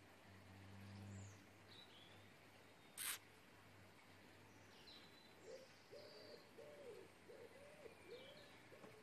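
Faint outdoor birdsong: small birds chirping now and then, and from about halfway a low, evenly repeated cooing call. A single sharp click about three seconds in is the loudest sound.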